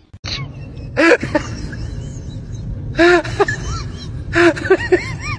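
A person crying out in short, loud yelps that rise and fall in pitch, once about a second in, again about three seconds in, then several in quick succession near the end, over a steady low rumble.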